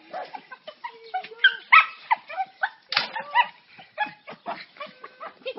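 Small white fluffy dog yipping and whining in quick, short cries, loudest about two and three seconds in: the excited greeting of a dog reunited with its owner.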